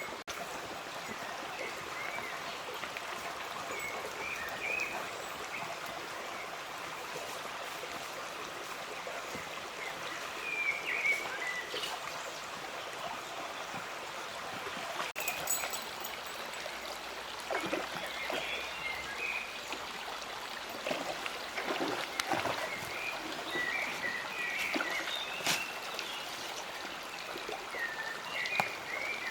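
A stream running steadily, with small birds chirping now and then.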